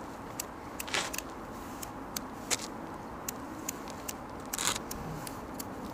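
Boots shuffling and scuffing on a gritty path, with two louder scrapes, one about a second in and one near the end, and scattered small clicks, over steady outdoor background noise.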